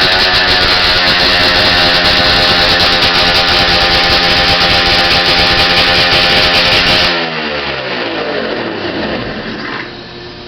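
Freshly restored 1971 Ski-Doo 645 Blizzard's two-stroke snowmobile engine running steadily, then shut off about seven seconds in, its pitch falling fast as it winds down and stops over a couple of seconds.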